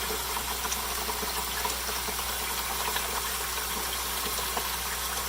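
Water running steadily into a swirl-filter bucket from the inlet pipe as the system refills, over a steady low hum.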